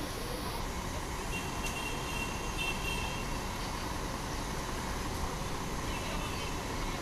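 Steady city street traffic noise with a city bus's engine running close by; a faint high tone sounds briefly about two seconds in.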